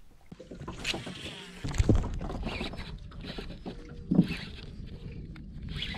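Knocks and thumps on a small fishing boat while an angler fights a hooked fish, with a loud low thump about two seconds in and a sharp knock about four seconds in.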